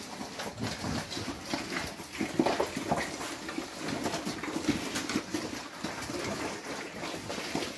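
Several pigs feeding at troughs on a wet mash of ration, soy hulls and whey: continuous wet chomping and slurping with irregular smacks and small grunts.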